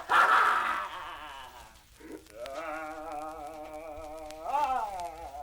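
A scream trails off in the first second. Then, about two seconds in, a wordless, wavering moaning voice begins; it swells up and glides down near the end. These are staged horror sound effects from a 1970s spooky-sounds record.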